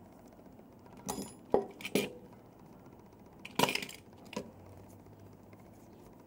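Small hard parts of a glo Hyper X2 heated-tobacco device clicking and clinking as they are handled and set down during disassembly. There are about five separate knocks: three close together, the sharpest about a second and a half in, then two more around three and a half and four and a half seconds in.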